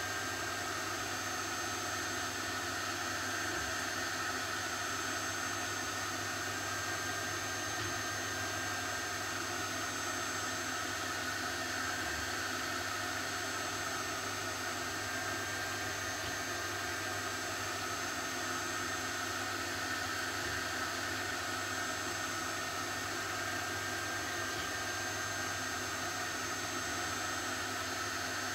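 Steady background hum and hiss, with a few faint constant tones and no change in level.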